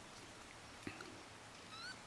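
A young raccoon kit gives a short, high, rising chirp near the end, after a faint tap a little under a second in.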